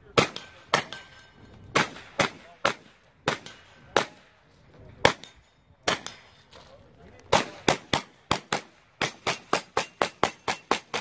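9mm pistol-caliber carbine firing rapidly, mostly in quick pairs and short groups. Near the end comes a fast, even string of about ten shots at roughly five a second.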